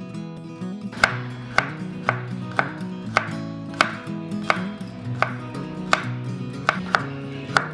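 Kitchen knife slicing peeled garlic cloves on a wooden cutting board: a sharp knock of the blade on the board about twice a second, starting about a second in, over background music.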